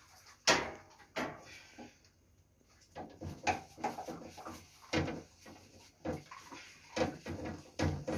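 Sectioned metal chimney-cleaning rod being pushed up into a stainless-steel flue pipe, knocking and scraping against the pipe. There is a sharp knock about half a second in and another just after a second, then a run of irregular knocks and scrapes from about three seconds on.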